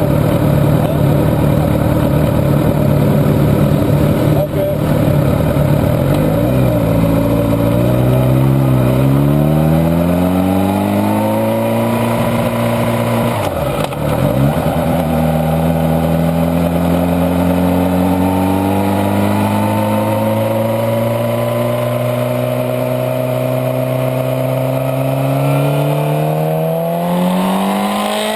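Suzuki GSX-R sport bike's inline-four engine idling, then revving up as the bike pulls away in first gear. About halfway through the pitch drops sharply at the shift into second, then climbs slowly and steadily under acceleration, with another shift dip at the very end.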